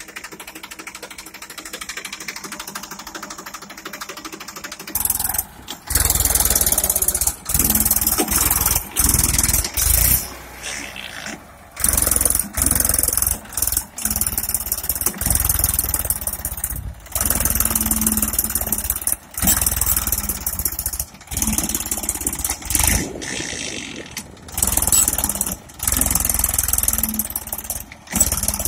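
Massey Ferguson 241 DI tractor's three-cylinder diesel engine working under load as it tries to drag a loaded trailer out of deep sand with its rear wheels dug in. Fairly quiet at first, then loud from about five seconds in, with frequent sudden drops in level.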